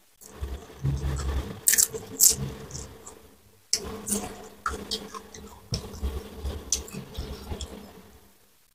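A person biting and chewing deep-fried gourami fish, with irregular sharp crackles as the crisp fried fish is bitten and crunched between wetter chewing sounds.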